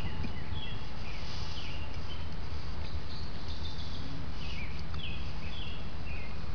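Woodland birds calling in short, falling chirps several times over a steady low background noise.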